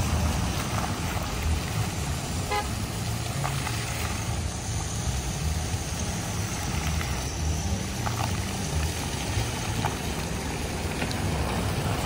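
Steady outdoor noise of fountain jets splashing into a pool, mixed with road traffic and wind on the microphone. A brief horn toot sounds about two and a half seconds in.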